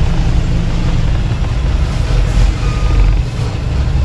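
Loaded goods truck's diesel engine running as heard from inside the cab, a steady low rumble, with a short beep about three seconds in.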